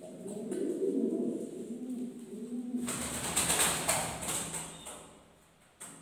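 Domestic fancy pigeons cooing in low warbling phrases, cut off about three seconds in by a burst of rapid rustling noise that fades out.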